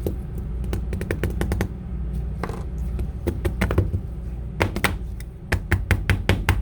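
Irregular clusters of sharp clicks and taps from handling an opened iPhone 8 while searching for a loose screw dropped inside its frame. A steady low hum runs underneath.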